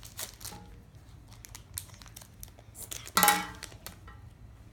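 Foil Pokémon card booster pack crinkling and tearing as it is opened, in scattered short rustles. About three seconds in comes one brief, louder pitched sound.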